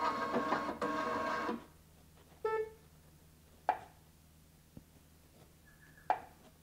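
The Singer EM9305 embroidery machine's embroidery-arm motors whir in two short moves for about a second and a half. Then come a single beep and two short blips from the machine as its touchscreen buttons are pressed.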